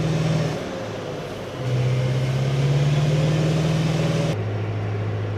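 Amphibious assault vehicle's diesel engine droning steadily as it swims, with water rushing along the hull. About four seconds in the sound changes abruptly to a lower, steadier drone.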